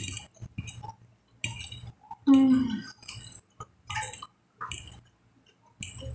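A metal fork clinking and scraping on a glass plate of food, with wet chewing sounds in between. About two seconds in there is a short, loud hum-like vocal sound that falls in pitch.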